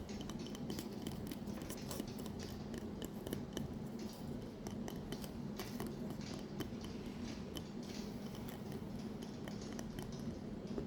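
Small irregular clicks and taps from a decorative Christmas bell ornament being handled, over a steady low hum.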